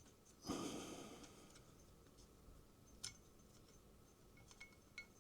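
Small parts and tools handled on a workbench: a sharp clink about half a second in that rings briefly, a lighter click a few seconds later and a few faint ticks near the end.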